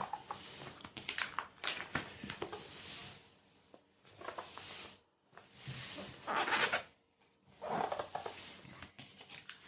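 Plastic sleeve pages of a trading-card binder being turned and handled: crinkling rustles in irregular bursts with short pauses.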